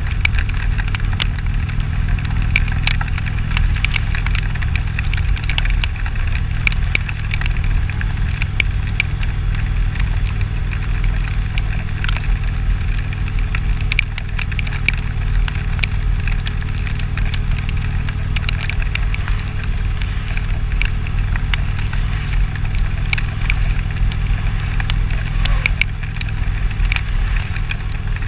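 Touring motorcycle riding at speed in heavy rain: a steady low rumble of engine and wind on the microphone, with raindrops ticking sharply and irregularly on the camera.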